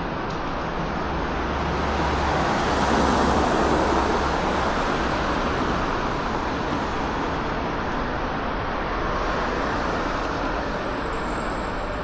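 City street traffic noise with motor vehicles going by, swelling as one passes close about three seconds in and again more gently near the end.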